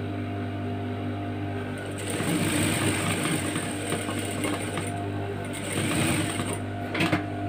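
Sewing machine stitching a seam through fabric, starting about two seconds in and running for about four and a half seconds over a steady hum. Two sharp clicks come near the end.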